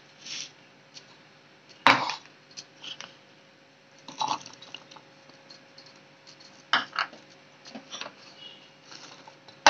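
Scattered knocks and clinks of plastic bowls against a steel bowl as sliced onion, garlic cloves and green chillies are tipped in for grinding into a paste, the sharpest knock about two seconds in.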